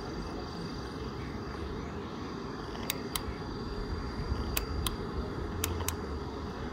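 Three pairs of short sharp clicks as the odometer/trip button on a 2004 Harley-Davidson Night Train's speedometer is pressed and released, over a steady background hiss and rumble.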